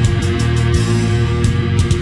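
Loud rock music with guitar, laid over the picture.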